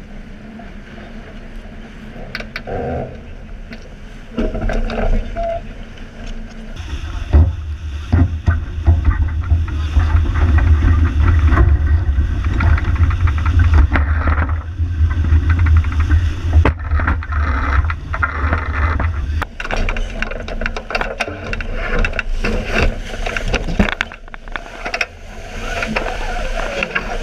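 Wind buffeting the microphone and water rushing along the hull of a J80 sailboat under sail, with scattered clicks and rattles. The wind rumble turns heavy about seven seconds in and eases again about twenty seconds in.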